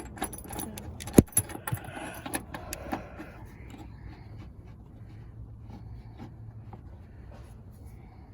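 Light clinking and rattling from handling small parts during interior work on a car, with one sharp knock about a second in and a few more knocks soon after, then only faint scattered clicks.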